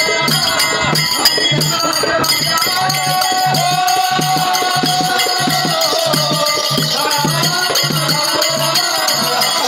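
Live Telangana oggu katha folk music: a steady drumbeat with jingling, rattle-like percussion and a long, wavering melodic line held through the middle.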